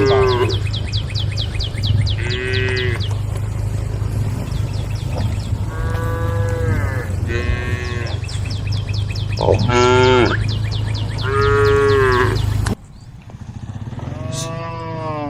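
Cattle mooing again and again, about seven long calls one after another as the cows call to the herd. A steady low hum runs underneath and cuts off suddenly near the end.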